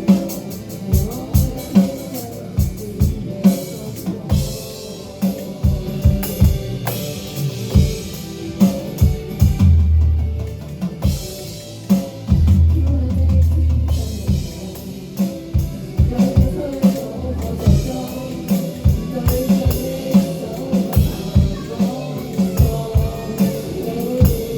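Pop-rock music led by a drum kit playing a steady beat, with kick drum and snare or rimshot hits and a held low bass note near the middle.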